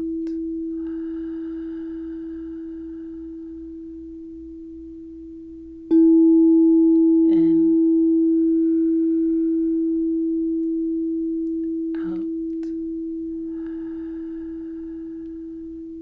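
Tuning fork ringing one pure, steady tone that slowly fades. It is struck again about six seconds in, sounding louder, then fades again.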